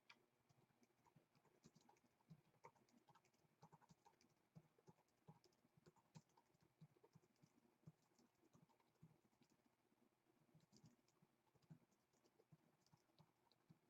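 Very faint computer keyboard typing: scattered, irregular keystrokes and clicks.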